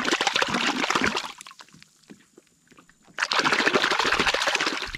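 Water splashing and sloshing in two loud spells, the first over the opening second or so and the second starting about three seconds in, with a near-quiet gap of scattered small ticks between them.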